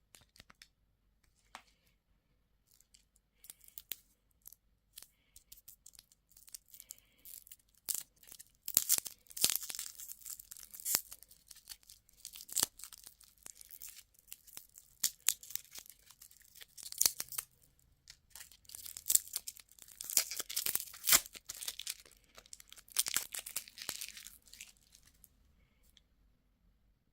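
Candy or toy packaging being torn open and crinkled by hand: irregular crackling and tearing, a few soft clicks at first, then heavy bursts about a third of the way in and again around three-quarters through.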